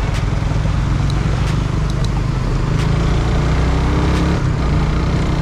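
Suzuki Raider R150 Fi's single-cylinder four-stroke engine running steadily while riding, heard from the handlebars with road and wind noise.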